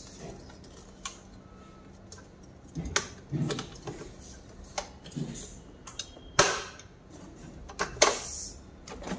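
Hard plastic parts of a Kärcher WD6 Premium wet-and-dry vacuum cleaner's housing clicking and knocking as they are pressed back into place by hand: a few irregular sharp clicks, the loudest about six and a half seconds in and another about eight seconds in.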